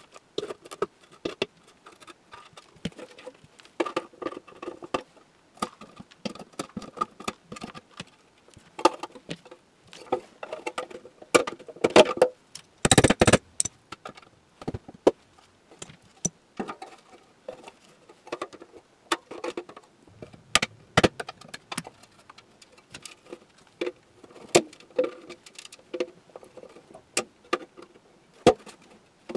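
Hand tools clicking, tapping and scraping against the small metal cabinet of a Philmore Blackbird crystal radio, with scattered knocks of tools being handled and set down. A louder scraping clatter lasting about a second comes about halfway through.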